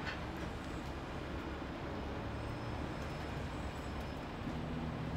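Steady low rumble of a 50-ton rotator tow truck's diesel engine running while its boom lowers a box truck onto its wheels.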